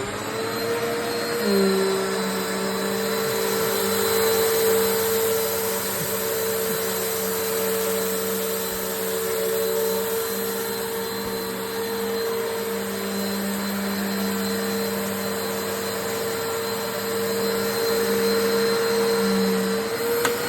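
Eureka WhirlWind 3272AV bagless upright vacuum switching on and spinning up, then running steadily as it sucks cat litter out of carpet. A lower hum joins about a second and a half in and drops out shortly before the end.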